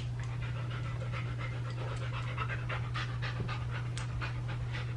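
A large dog panting close by in quick, even breaths, about four a second, over a steady low hum.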